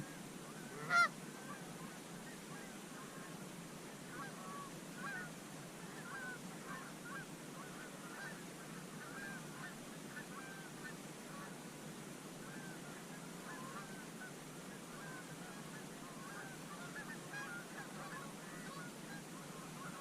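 A flock of geese honking, many short overlapping calls that go on throughout, faint. A single sharp knock about a second in.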